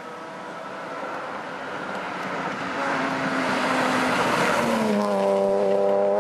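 A red BMW 3 Series rally car approaching at speed and passing close by, its engine note growing steadily louder and dropping in pitch as it goes past about five seconds in, then running on steady at high revs as it pulls away.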